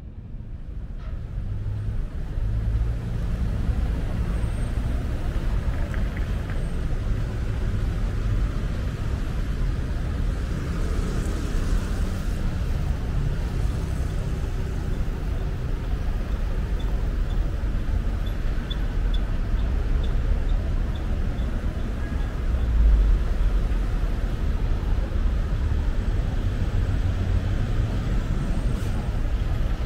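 Road traffic on a city street: a steady low rumble of cars and buses passing. It grows louder over the first couple of seconds, and there is a brief louder rumble of a passing vehicle about two-thirds of the way through.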